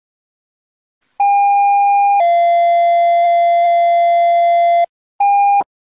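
Fire dispatch tone-out: a two-tone sequential page, one steady tone for about a second, then a slightly lower tone held for over two seconds, followed by short evenly spaced beeps.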